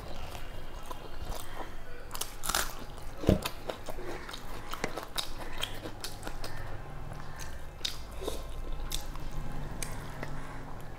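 Close-up eating sounds: a person chewing mouthfuls of rice and chicken curry and working rice by hand on a steel plate, with scattered crunches and small clicks and one sharp knock about three seconds in.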